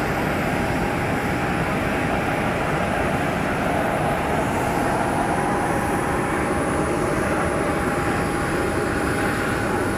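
Jet airliner turbine running: a steady, loud rushing noise with a constant whine held over it.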